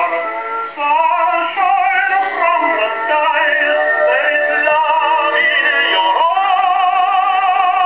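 Victor Victrola VV-VI acoustic phonograph playing a 78 rpm record: a tenor singing with wide vibrato over instrumental accompaniment. The sound is thin and narrow, with no deep bass and no high treble.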